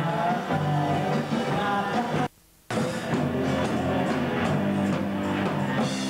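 Live rock band playing, guitars and a singing voice through the club PA. A little over two seconds in, the sound cuts out completely for about half a second, then the music carries on.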